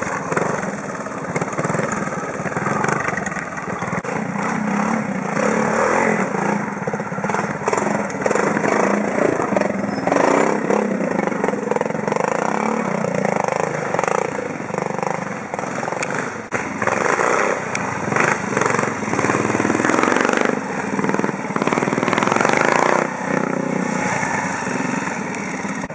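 Classic trials motorcycle engines running at low speed, the throttle opened and closed in short bursts as the bikes climb over rocks and roots. The sound changes abruptly a couple of times as it switches from one bike to another.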